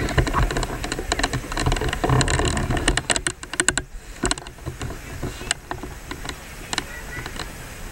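Wind buffeting the microphone, with a quick run of sharp clicks and rattles about two to four seconds in and a few single clicks later, over faint voices of a crowd.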